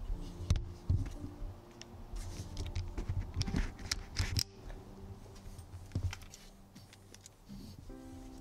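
Irregular clicks, taps and small knocks of a camera and telephoto lens being handled and moved around, with soft rustling between them.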